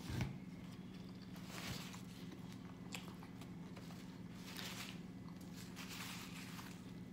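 Close-up mouth sounds of chewing a bite of toasted tuna sandwich: soft wet smacks every second or so, with a short sharp click at the very start. A steady low hum runs underneath.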